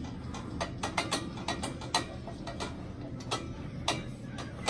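Cable machine clicking and clinking during overhead cable curls: the metal clip and bar rattle on the cable with several sharp, irregular clicks a second, over a low steady hum.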